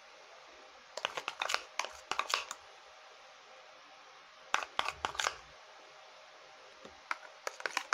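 A spoon scraping and clicking against a small bowl while stirring and lifting a thick, sticky paste, in three short bunches of scrapes: about a second in, around the middle, and near the end.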